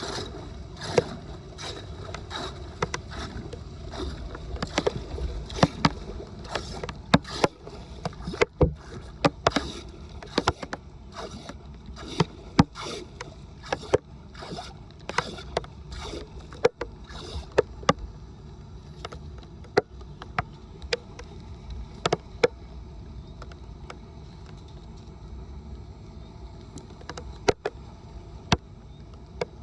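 Floodwater sloshing and running, with many irregular sharp knocks and clatters, frequent at first and sparser from about eighteen seconds in.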